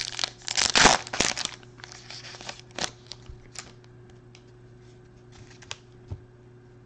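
A trading-card pack wrapper being torn open and crinkled, a run of sharp crackles loudest about a second in, dying away after about three seconds to a few faint clicks as the cards are handled.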